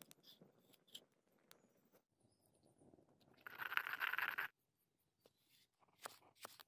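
Wooden pestle crushing chopped tomatoes and spices in a stone mortar, a wet crunching for about a second that stops abruptly. Near the end, a few quick knife strokes slicing a red chili on a wooden board.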